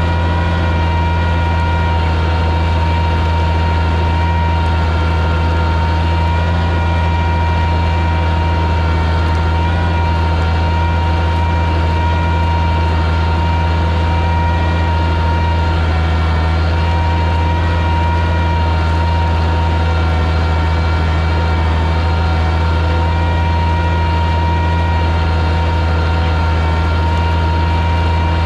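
Oliver 77 tractor engine running steadily under load while pulling a plow through the soil, a constant low drone with a steady pitch.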